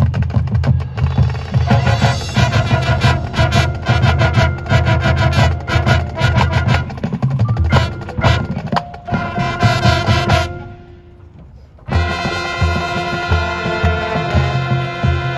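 High school marching band playing: drums and percussion drive a busy rhythm under the horns, drop to a brief quiet passage about ten and a half seconds in, then the brass come back in with sustained chords over the drums about twelve seconds in.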